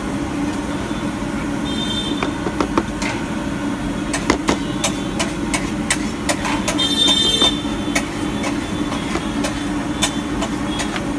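Metal spatula clinking and scraping against a steel pan of simmering noodles, many sharp knocks, over a steady low hum. Two brief high squeals, about two seconds in and again around seven seconds in.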